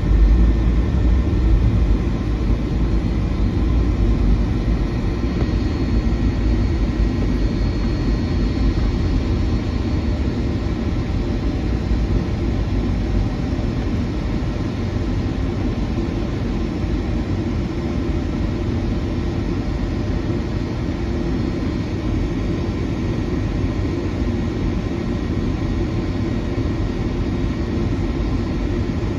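Steady cabin rumble of a Boeing 757-200 airliner at takeoff power, a deep noise of engines and airflow heard from inside the cabin, a little louder in the first couple of seconds and then even.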